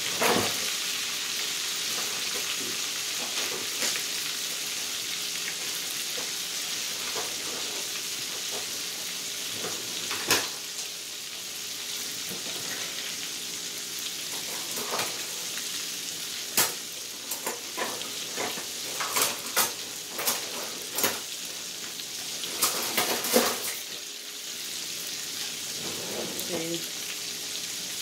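Breaded pork chops frying in hot oil in a skillet: a steady sizzle with scattered pops and crackles, which come thicker past the middle.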